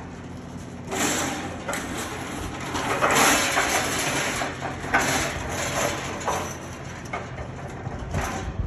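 Casters of a heavy steel live-fire grill rolling over rough concrete: a grinding rumble that starts about a second in and swells and fades as the grill is pushed, with a few sharp knocks.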